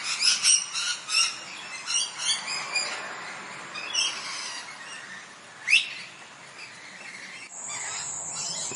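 Ringneck parrot calling: a quick run of chirps and squawks at the start, then scattered calls, and one sharp rising shriek, the loudest, about six seconds in. A steady high-pitched whine comes in near the end.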